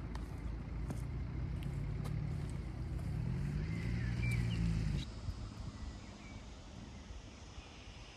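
A low engine hum, like a motor vehicle running, whose pitch wavers slightly and which stops abruptly about five seconds in, leaving a quieter background.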